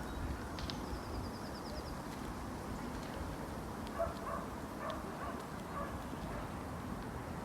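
Steady outdoor background noise with a small bird giving a quick high trill about a second in, and a few faint short calls a little past the middle.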